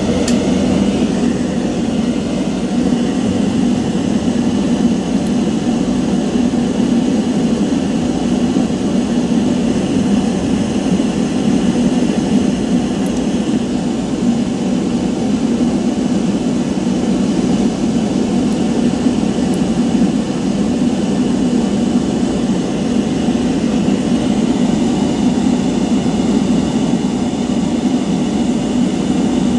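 Small electric motor running with a steady drone, switched on just before, during solder removal from the mouse's side-button switch.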